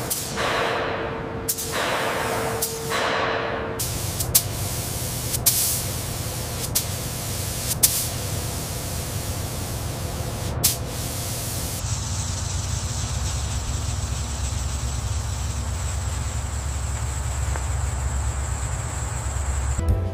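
Compressed-air paint spray gun hissing in repeated bursts during the first four seconds. After that comes a steady low hum with a few sharp clicks, and a faint high whine joins about twelve seconds in.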